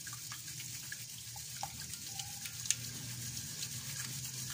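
Wire whisk stirring melted butter and chocolate in a glass bowl: a soft liquid swishing with scattered small clicks of the whisk against the bowl.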